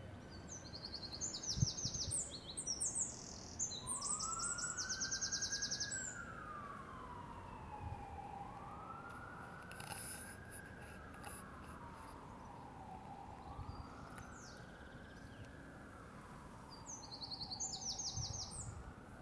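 An emergency vehicle's siren wails slowly up and down, each rise and fall taking about four seconds, starting about four seconds in. A songbird sings high, rapid trills at the start and again near the end.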